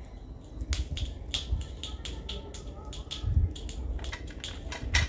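Irregular light clicks and taps from a stainless steel namkeen press being turned over a perforated slotted spoon and the utensils being handled on a plate, with a dull knock about three seconds in.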